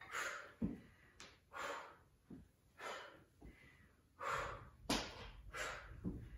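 A woman breathing hard from exertion, with short forceful breaths about once a second while she squats and tucks a knee, and a few soft thumps in between.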